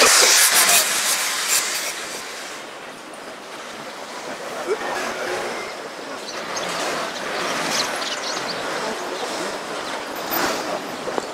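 City street noise: a steady rushing wash of traffic with scattered clicks and faint voices, loudest and busiest in the first two seconds.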